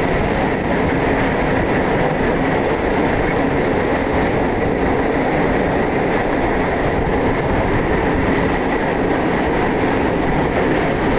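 Electric multiple-unit suburban train heard from on board, running steadily along the track with an even, unbroken running noise.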